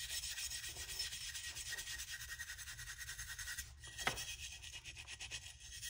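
An old tool part being scrubbed by hand in fast, even back-and-forth strokes, a dry rasping rub, with one sharp knock about four seconds in.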